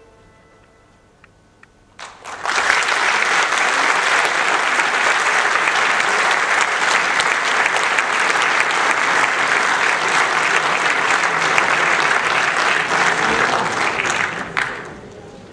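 Audience applauding in a concert hall. It breaks out suddenly about two seconds in, after a moment's quiet, holds steady and dies away near the end.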